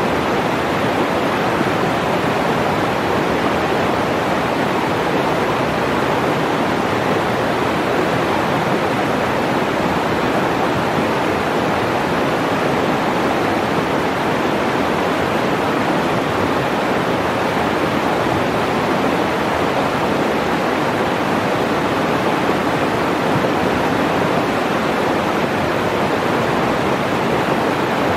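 Fast, shallow mountain river rushing over rocks and boulders: a steady, even rush of water.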